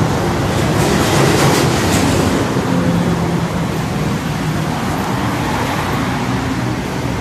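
MRT Purple Line electric metro train running, a steady rumble with a low hum.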